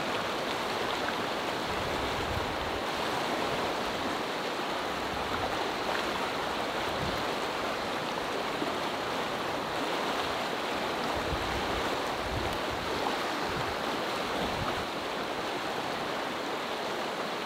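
Fast mountain river running over rapids: steady rushing water.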